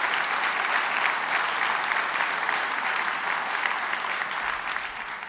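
Large audience applauding steadily, the clapping starting to fade at the very end.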